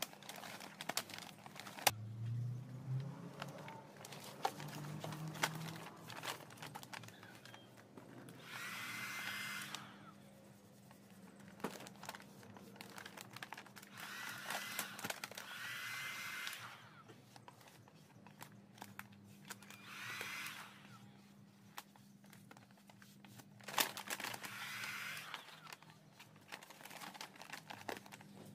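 Electric heat gun blowing in four separate blasts of a few seconds each, a steady rush with a thin whistle, as it heats matte black vinyl wrap. Between the blasts the vinyl sheet crinkles and rustles under the hands.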